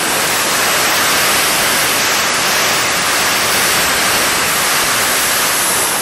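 Electric drill running steadily as its bit bores a hole through the wall of a white PVC pipe fitting, a loud, even noise.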